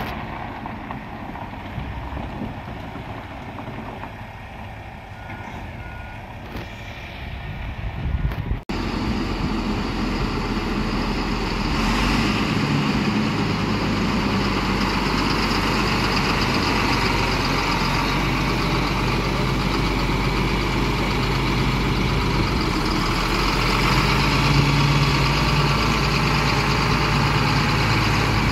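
Heavy diesel engines running, from the big farm tractor and the transport truck. Quieter at first with a few faint short beeps; after a sudden cut about nine seconds in, the engine sound is louder and steady.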